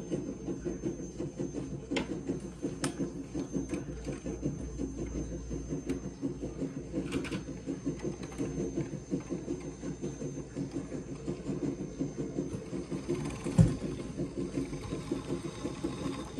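Model train running on the layout's track: a steady, fast, rhythmic mechanical clatter of the motor and wheels. A single sharp thump about three-quarters of the way through.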